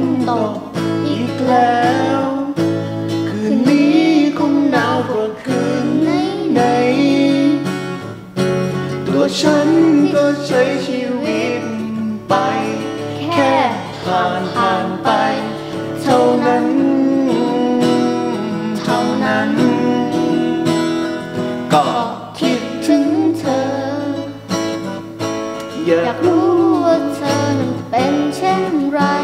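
Acoustic guitar strummed as accompaniment to a girl singing a Thai pop ballad, with a man singing along softly beneath her voice.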